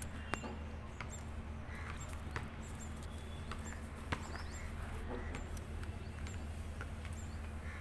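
Dogs scuffling over a cloth doll on grass: scattered light taps and rustles, with faint high bird chirps now and then in the background.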